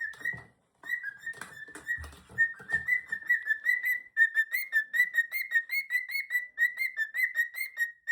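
Cockatiel singing: a quick string of short, repeated whistled chirps, about four or five a second, with a brief pause near the start. A few soft knocks sound under the whistling in the first few seconds.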